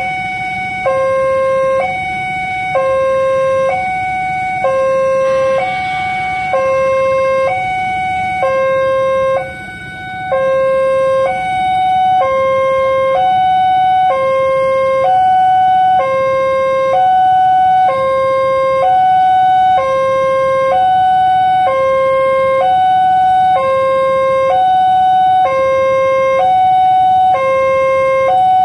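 Railway level-crossing warning alarm, the old PCL 138 type, sounding a steady two-tone pattern: a lower and a higher tone alternating, each held about a second.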